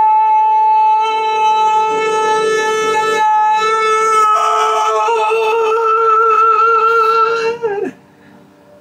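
A man singing one long, high sustained vowel note for about four seconds, then moving to a new note held with vibrato for about three more seconds, ending with a quick downward slide near the end.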